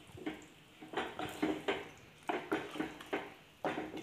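Wooden spatula stirring thick, soft-cooked millet and lentil mash in an aluminium pressure cooker: repeated short scrapes and knocks against the pot, irregular, two or three a second.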